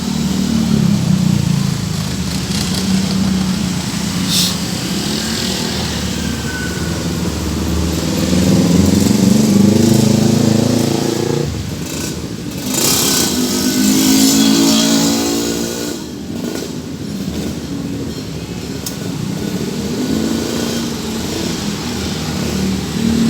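Engines of passing road vehicles running, their pitch rising and falling in several slow waves.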